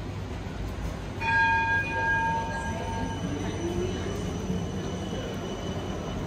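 An electric city tram in the street: about a second in, a clear high tone rings steadily for about two seconds. Then the tram's motor whine rises slowly in pitch as it gathers speed, over a steady low hum.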